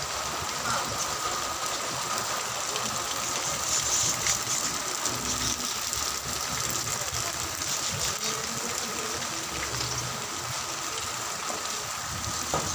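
Heavy rain falling steadily: a dense, even hiss with scattered faint taps of drops.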